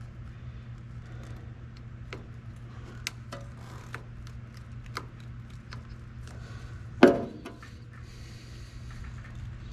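Hand snips and handling of rubber D-channel weatherstripping with metal gripper inserts give scattered sharp clicks and snips while the strip is trimmed to length. One much louder knock comes about seven seconds in, all over a steady low hum.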